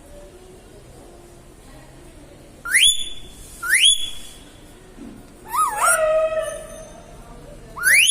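Indian ringneck parrot giving cat-like cries: two short rising whistles close together about three seconds in, a longer wavering cry midway that settles into a lower, meow-like tone, and another rising whistle at the end.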